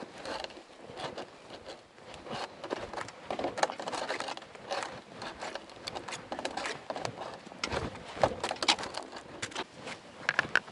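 Irregular rustling and scraping with small clicks, from a person moving about and handling fishing gear; it grows busier toward the end.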